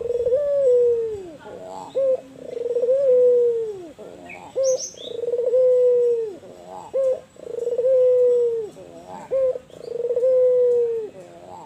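White (albino) puter dove, a Barbary dove, calling its repeated coo: each call is a short clipped note followed by a long, steady low coo that drops away at the end, coming about every two and a half seconds.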